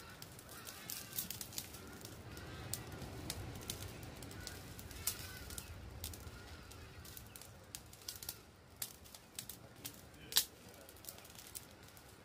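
Small fire of dry twigs crackling, with irregular sharp cracks and pops and one louder crack about ten seconds in. Birds call faintly during the first half.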